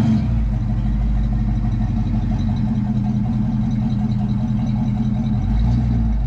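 Ford Bronco's engine running at idle as the truck creeps into position for a strap recovery, with a brief rise in the engine note near the end.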